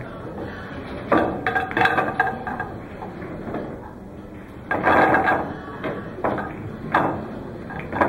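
Pool balls clacking together as they are gathered and packed into a triangle rack on a pool table. Sharp clacks come in small groups, the densest cluster about five seconds in.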